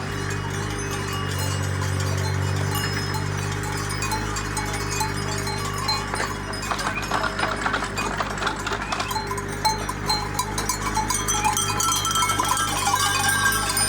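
Animal bells clanking irregularly, growing busier from about halfway through, over a steady low hum.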